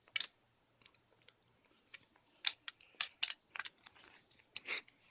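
An AR-15 rifle being handled: a string of short, sharp clicks and knocks, loudest about two and a half to three seconds in and again near the end.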